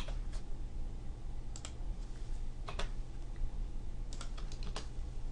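Computer keyboard keystrokes and mouse clicks as a spreadsheet formula is typed in, coming in small scattered groups with a quick run of about six near the end. A low steady hum sits underneath.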